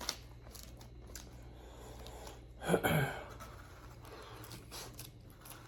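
A person eating a cold-cut salad, with faint chewing and small clicks. About three seconds in there is a brief low "mm" hum.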